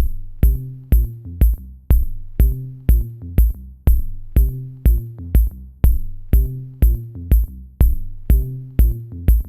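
Electronic background music with a steady drum-machine beat, about two beats a second, over a low repeating bass line.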